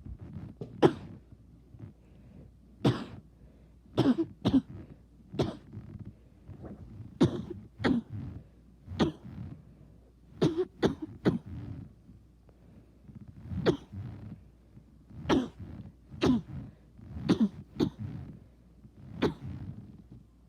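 A man coughing hard over and over, about seventeen coughs, some in quick twos and threes with throat-clearing between: a persistent bad cough.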